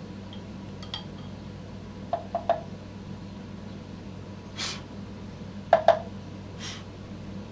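Pliers clicking and clinking against the metal rim and valve as the tubeless valve mechanism is cut out: a click, then a quick run of three, then two sharp clicks, with two short hissy puffs between them.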